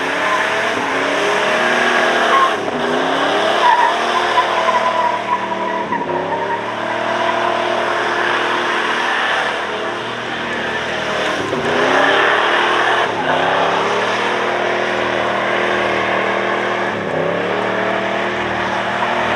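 Car engine accelerating hard through the gears, its pitch climbing steadily and then dropping at each shift, about five times over.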